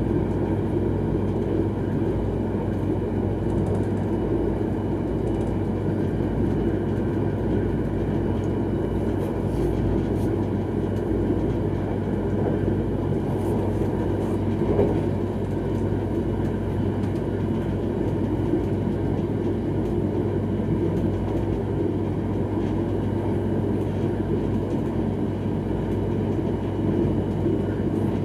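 X31 electric multiple unit running at speed, heard from inside its rear cab: a steady rumble of wheels on the rails with a constant low hum. One brief knock about halfway through.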